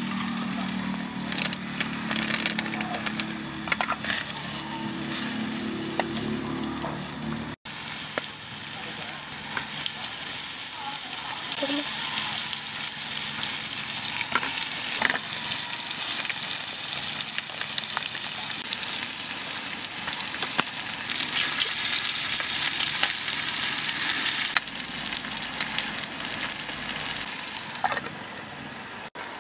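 Butter melting with a light sizzle in a nonstick camping pan. After a cut about eight seconds in, pork wraps fry in the hot butter with a loud, steady sizzle.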